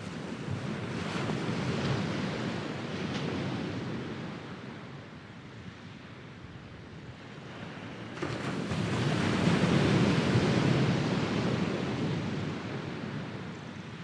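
Small sea waves breaking and washing up a sandy beach: two waves, the second, arriving about eight seconds in, louder and longer than the first.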